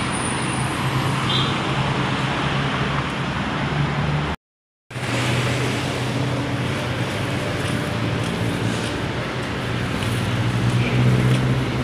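Steady road traffic noise: cars and other vehicles passing with their engines running, with a low engine hum throughout. The sound drops out completely for about half a second, about four and a half seconds in.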